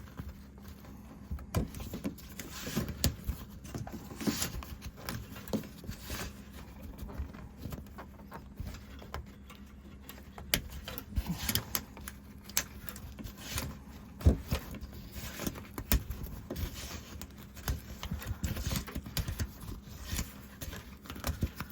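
Irregular small clicks and rattles of a shower curtain's slides being worked out along and off its ceiling track.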